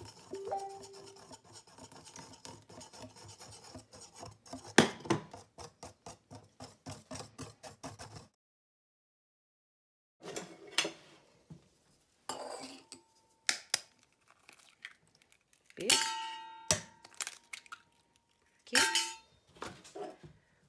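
A wire whisk beating batter in a ceramic bowl: a fast, even scraping rattle with one loud knock about five seconds in. After a break come a few sharp cracks and clinks, some with a short ringing note, as eggs are cracked into the batter and the shells dropped into a steel cup.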